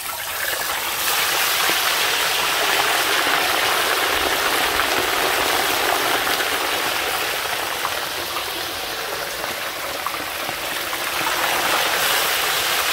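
Whole mojarra fish deep-frying in hot oil in a wide disco pan: a loud, steady sizzle with fine crackling.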